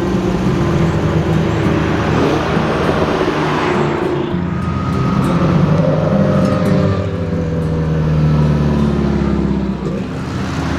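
Car engine running under load, its pitch rising and falling as it revs.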